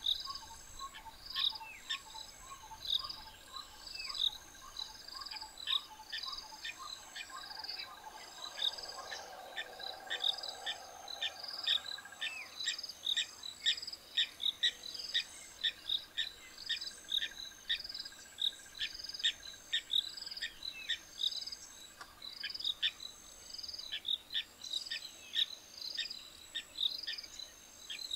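Insects chirping in a steady repeating rhythm, with many short bird calls over them that drop in pitch. A lower series of evenly spaced chirps, about two a second, runs through the first third.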